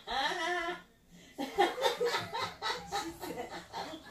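Laughter: a short burst, then from about a second and a half in a long run of rapid repeated laughs.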